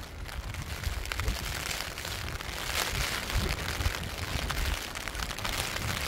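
Heavy rain falling in a strong gusting wind, with a steady patter of drops and the gusts rumbling on the microphone.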